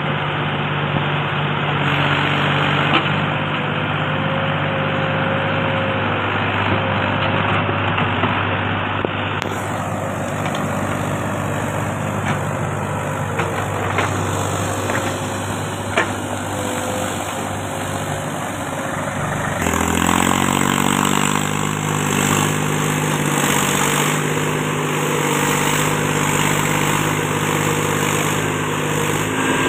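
Mahindra tractor's diesel engine running steadily while it pulls a loaded trolley through mud. The engine note changes abruptly twice, about ten and twenty seconds in, with a few sharp clicks between.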